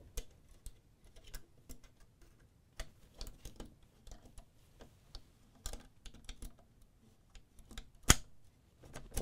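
A jigsaw blade is worked into the tool-free blade clamp of a DeWalt cordless jigsaw, giving light, irregular metal clicks and rattles as it is fiddled to seat. One sharper click comes about eight seconds in.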